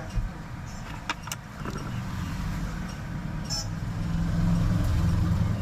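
Low, steady motor rumble like a vehicle engine running close by, growing louder in the last second or two, with a couple of sharp clicks about a second in.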